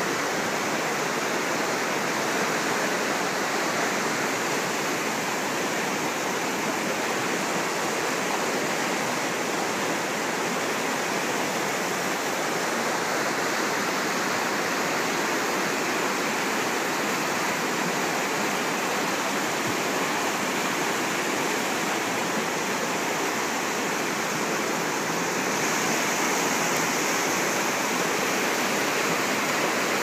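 River rapids: fast water rushing over rocks, a steady, even rush that gets slightly brighter and hissier near the end.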